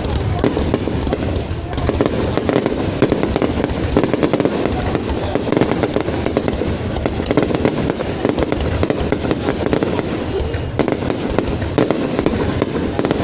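Fireworks going off in a dense, continuous barrage: rapid pops and bangs running together without a break.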